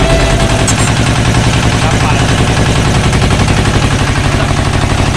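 Fishing boat's engine running steadily, with a rapid, even beat of pulses.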